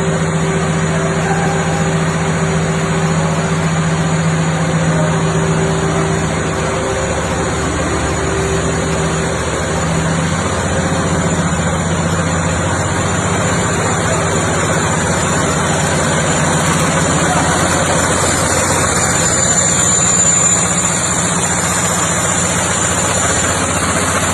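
Paper bag making machine running steadily, with a constant mechanical hum and a thin high whine over it. A low hum tone is stronger for about the first half, then fades back into the clatter.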